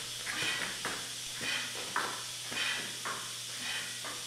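Power press brake running with a low steady hum, overlaid by soft hissing puffs about once a second.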